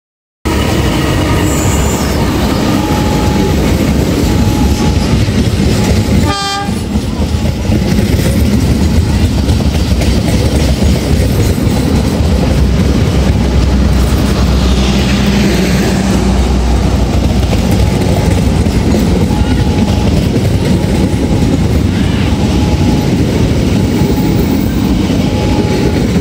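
A passenger train passing close by: a CC 203 diesel-electric locomotive running past, then its coaches rolling by, wheels clattering over the rail joints. The sound is loud and continuous, cutting in about half a second in.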